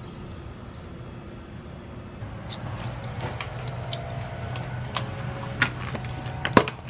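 A steady low rumble, growing a little stronger about two seconds in, joined by a run of sharp clicks and short metallic clinks that are loudest near the end.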